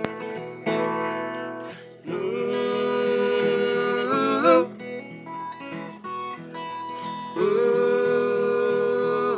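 Acoustic guitar playing an instrumental break in a folk song. Over it sound two long held lead notes, the first bending up in pitch just before it stops.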